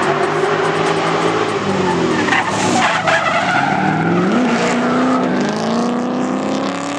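Drift cars sliding in tandem: engines held at high revs, their pitch rising and falling with the throttle, over the hiss and squeal of tyres skidding on asphalt.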